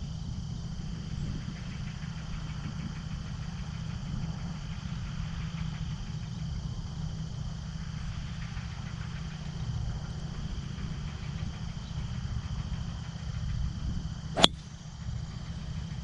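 A Titleist 905T titanium driver strikes a golf ball off the tee with one sharp, loud crack near the end, a drive hit flush. A steady low rumble continues underneath.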